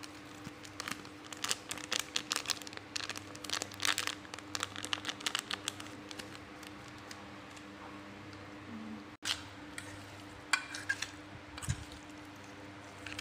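Apple snails in their shells and cut lemongrass being tossed and stirred in a stainless steel bowl: a quick run of clicks and crackles through the first half, and a few more near the end.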